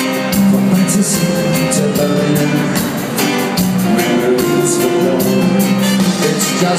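Ska-pop band playing live on stage, with a steady beat. The music is heard from within the audience in a large hall.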